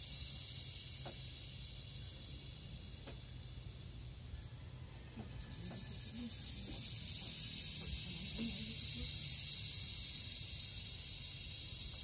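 Philippine cicada song, a high-pitched buzzing drone. It fades down about four seconds in, then swells back loud and tapers off near the end.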